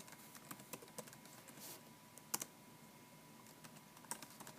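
Computer keyboard being typed on: faint, irregular keystrokes, with a louder pair of key clicks about two and a half seconds in.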